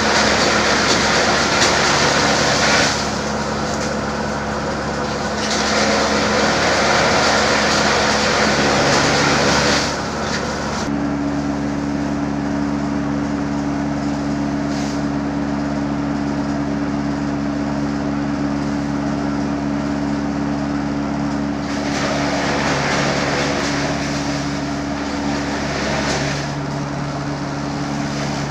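Electric-motor-driven forage chopper running with a steady hum, its blades chopping grass stalks in three louder, rougher stretches as bundles are fed in, and running lighter in between.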